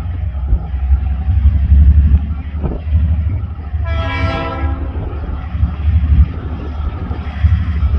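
Diesel locomotive DQ 2001 sounding one short horn blast about four seconds in as it approaches the level crossing, over a steady low rumble from the train.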